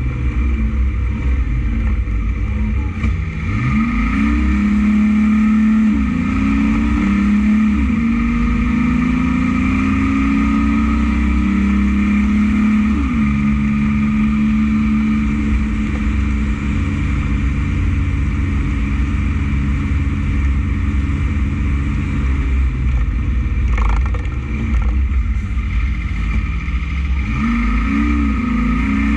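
Heavy dump truck's diesel engine heard from inside the cab, pulling through the gears: engine pitch climbs and drops sharply at each upshift, several times in the first dozen seconds and again near the end, over steady low road rumble.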